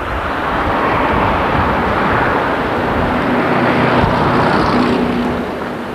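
A car driving past close by: engine and tyre noise swelling up, holding for a few seconds, then fading away near the end.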